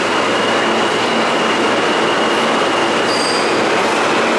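R160 subway train pulling out of the station: a steady, loud rush of wheels on rail with a thin, high wheel squeal that stops about three seconds in.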